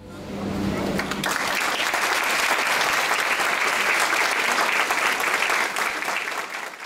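Audience applauding, a dense patter of many hands clapping that builds over the first second and then holds steady before fading out at the end.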